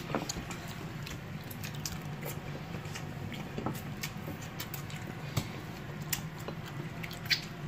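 Faint scattered clicks and soft squishing of people eating roast chicken, over a low steady hum.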